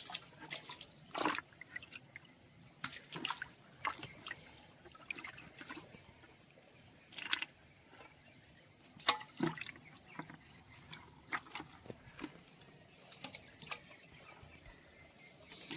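Small water splashes and drips, irregular and scattered, some a little louder than others.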